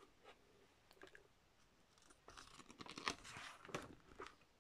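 Paper page of a picture book being turned by hand: a short rustle with a few crisp flicks about two to four seconds in.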